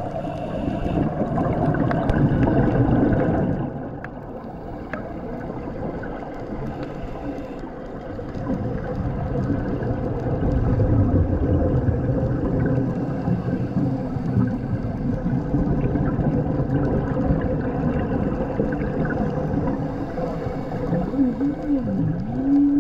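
Underwater sound of scuba diving heard through the camera housing: a diver's exhaled regulator bubbles gurgling in surges, over a steady low hum. Near the end a wavering tone glides up and down several times.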